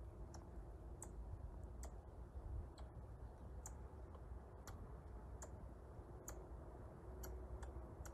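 Faint, sharp clicks, roughly one a second, from a Eurasian red squirrel sitting on a pine branch, over a low steady rumble.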